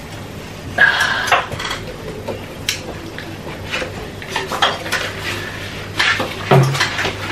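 Salad servers and cutlery clinking and knocking against a ceramic salad bowl and plate while salad is served: a series of irregular clinks.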